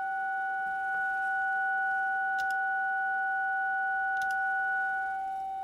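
DTMF dual tone from a Baofeng handheld transceiver: two steady pure tones sounding together, held as a test signal while its FM deviation is measured. The higher tone fades out shortly before the end and the lower one carries on, with two faint clicks partway through.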